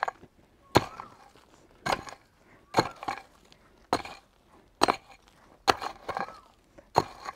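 Hand hoe chopping into dry, stony soil while digging a planting pit: seven blows, about one a second, each with a short crunch of earth and stones.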